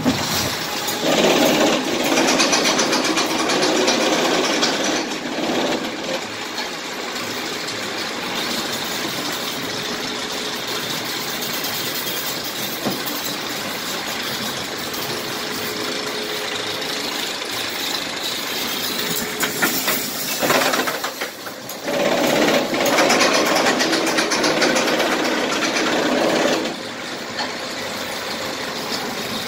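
Zamperla Family Gravity Coaster mine train running on its steel track: a steady mechanical rumble and rattle of wheels on rails. It is louder for a few seconds near the start and again about three quarters through, with a brief dip just before the second loud stretch.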